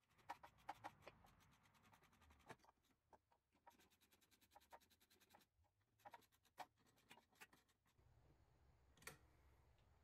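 Faint, irregular clicking and scratching of hands handling rubber hoses and fittings in a car's engine bay, with one slightly louder click about nine seconds in.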